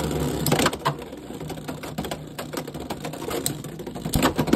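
Two Beyblade X spinning tops whirring in a plastic stadium and clattering against each other, with quick repeated clicks of contact and a loud hit just after four seconds in.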